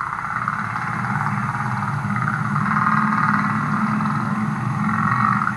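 Humpback whale song from an old hydrophone recording, played back over loudspeakers: long drawn-out calls with a low hum and higher tones sounding together, swelling twice and dropping away near the end.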